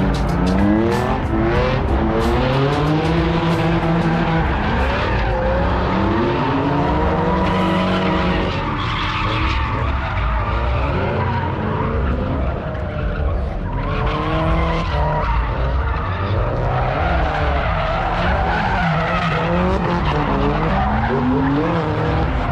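Drift cars' engines revving hard, their pitch rising and falling over and over, with tyres squealing as they slide.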